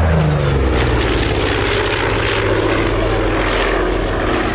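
Douglas A-26B Invader's twin Pratt & Whitney R-2800 radial engines and propellers on a fast, close pass, the engine note dropping in pitch as it goes by at the start, then running steadily as the aircraft banks and climbs away.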